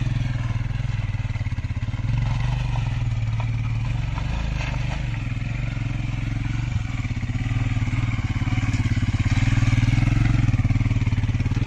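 A vehicle engine running steadily with an even, fast pulse, getting a little louder over the last few seconds.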